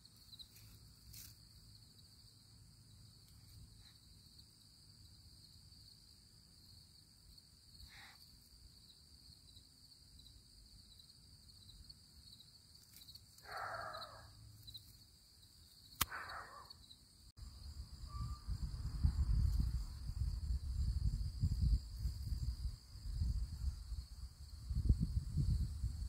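Steady high-pitched insect drone in a summer backyard, with two short sounds falling in pitch about halfway through. In the second half, low rumbling noise on the microphone grows louder than the insects.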